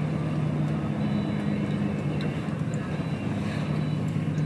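Heavy truck's diesel engine running steadily at low road speed, a continuous low drone heard from inside the cab.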